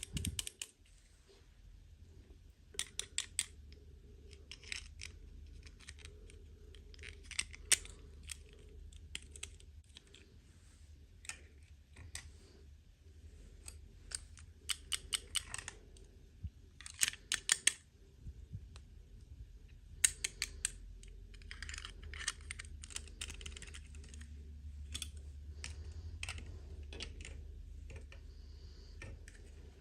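Toy packaging being handled and opened by hand, with plastic clicking and tapping in quick clusters of sharp ticks, some louder snaps, and brief scratchy rustles between them.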